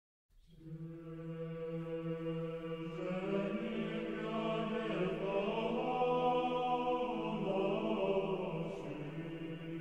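Choral chant: a low note held as a drone, with more voices joining about three seconds in and singing a slowly moving melody above it.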